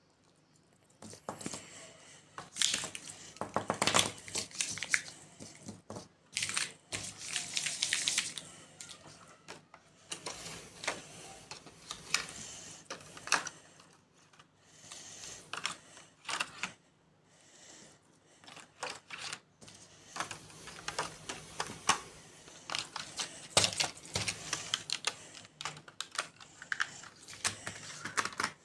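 Plastic highlighter pens clicking and clattering against each other and their plastic box as they are handled and packed away. The clicks are irregular, with a run of rapid ticks about four seconds in and short quiet gaps between handlings.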